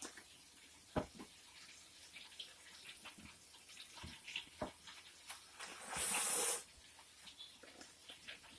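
Spoon stirring macaroni and melted cheese in a disposable aluminum pan: scattered soft taps and wet squelches, with a short loud hiss about six seconds in.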